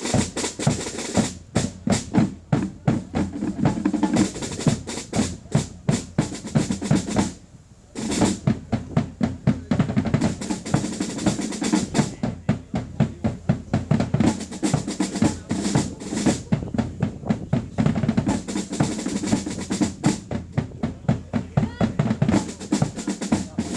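Marching drum band playing snare and bass drums in a steady march beat with rolls, pausing briefly about seven seconds in before starting again.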